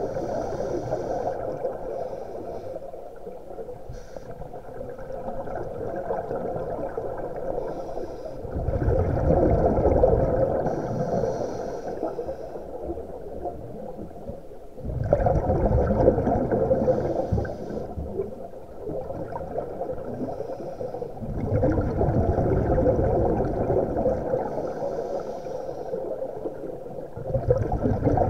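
Scuba divers breathing through regulators underwater: a rush of exhaled bubbles swells up about every six seconds, each lasting around three seconds, with a quieter rumble and hiss between, recorded underwater.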